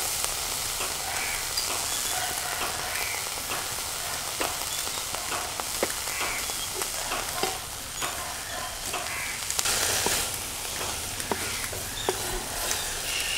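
Chopped pumpkin stem greens and grated coconut sizzling in a metal pan over a wood fire, with a wooden spatula stirring and scraping and scattered sharp clicks. The sizzle swells briefly about ten seconds in.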